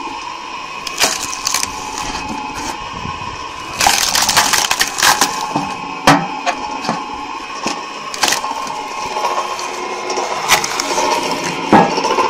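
Electric screw-cone log splitter running with a steady motor hum while birch wood is forced onto the spinning threaded cone: the wood cracks and splinters sharply several times, with a dense run of crackling about four seconds in.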